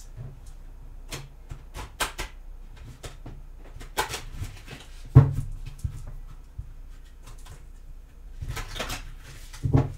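Tarot cards shuffled by hand: a run of soft clicks and card rustles, with one louder knock about five seconds in and a short burst of riffling near the end.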